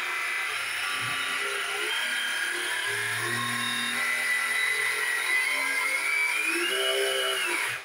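Radio-controlled model boat's electric drive motor running under throttle, a steady whine that wavers in pitch and rises near the end as the stick is moved, then cuts off suddenly.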